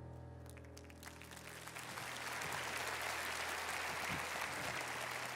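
Congregation applauding, building up about a second in after the song's last held chord fades out.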